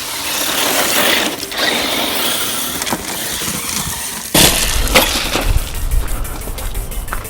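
Background music with a loud crash-like hit about four seconds in, after which a steady bass beat with fast, even ticks comes in.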